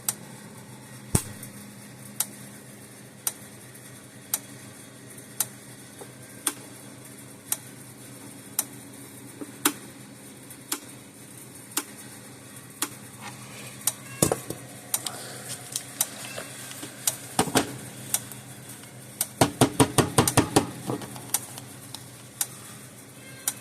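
American Farmworks 120-mile, 6.7-joule electric fence charger pulsing, each pulse snapping as a spark across a test gap from fence terminal to ground, about once a second. In the second half there are short clusters of quicker clicks among the regular snaps.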